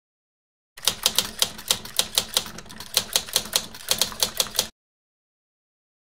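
Typewriter keys clacking in a quick, slightly uneven run of about twenty strokes, about five a second. The run starts just under a second in and stops abruptly about three-quarters of the way through.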